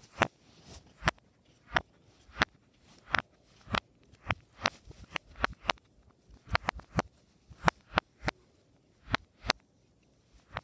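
Silicone pop-it fidget toy bubbles being pressed through one at a time, each giving a sharp pop. About two dozen pops at uneven spacing, coming in quicker runs of several in the middle.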